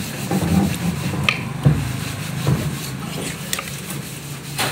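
A large knife sawing through a barracuda's scaly skin and flesh, scraping unevenly, with several short sharp knocks as the blade strikes bone or the tiled floor beneath.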